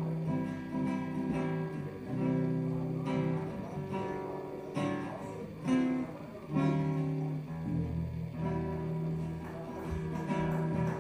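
Live music: a nylon-string classical guitar strumming chords that are struck and held, about once a second, with an electric bass playing a low line beneath.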